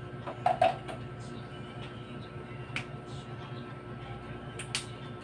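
Sharp clicks and taps of plastic containers and a bottle being handled: two loud clicks close together about half a second in and a few fainter ones later, over a steady background hum.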